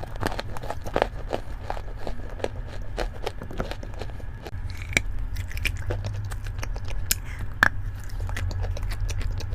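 A person biting and chewing, with many irregular crisp clicks and crackles, over a steady low hum.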